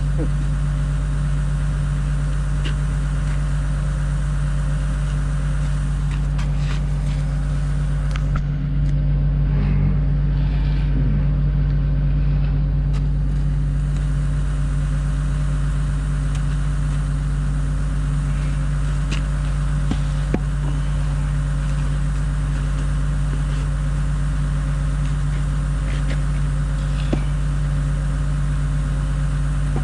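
An engine idling steadily with a constant low hum, with a few light clicks and knocks over it.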